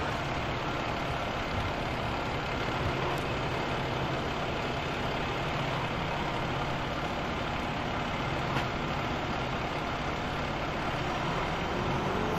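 Fire engine's diesel engine running steadily at the scene, a low hum under a constant hiss.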